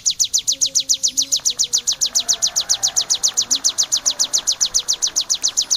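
Ciblek, a prinia, singing a fast, even string of high chirps, about ten a second, the rapid 'tembakan' run that masteran recordings are made of.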